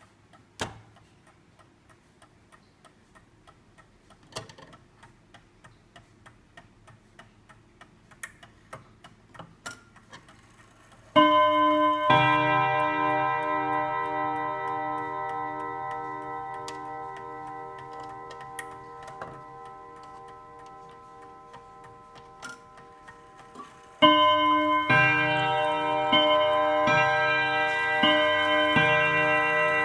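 Kieninger German pendulum mantel clock ticking softly, then striking. Two loud ringing strokes come about eleven seconds in and die away slowly. From about 24 seconds a run of strokes follows, roughly one a second.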